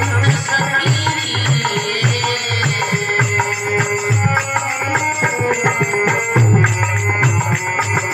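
Harmonium playing a held, reedy melody over a steady hand-drum rhythm: an instrumental passage of a Hindi devotional bhajan, with no singing.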